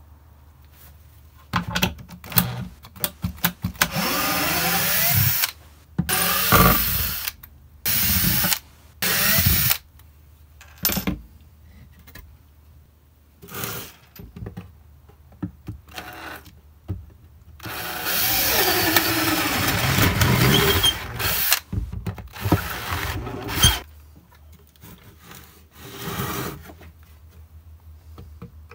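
Cordless drill boring into a wooden nest box: several short bursts, then one longer run of a few seconds, the motor speeding up as each burst starts, with knocks of the wood being handled in between.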